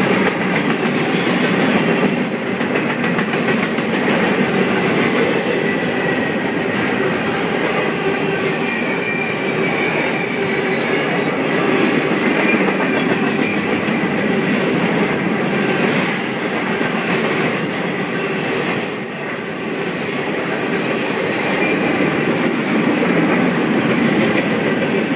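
Freight train cars rolling past close by, a steady loud rumble and rattle of wheels on the rails, with a thin wheel squeal at times.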